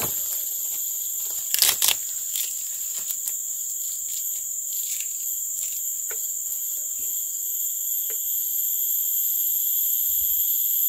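Steady, high-pitched chorus of insects shrilling at several pitches at once, with a quick cluster of sharp clicks a little under two seconds in.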